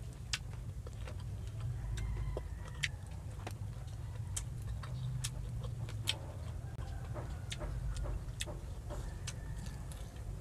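Close-up chewing of a mouthful of radish kinilaw with small anchovies: irregular sharp crunches and mouth clicks over a low steady hum.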